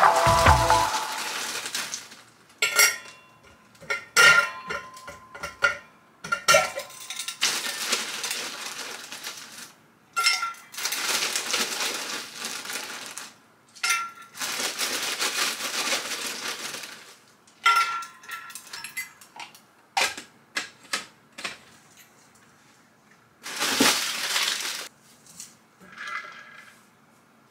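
Washing up at a kitchen sink: the tap runs on and off in spells of a few seconds, between sharp clinks and clatter of dishes and utensils in the basin.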